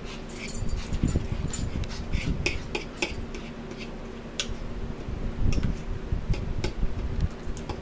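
Metal forks clicking and scraping against a plastic bowl and a plastic takeout container while eating tuna salad, in irregular short clicks over a steady low hum.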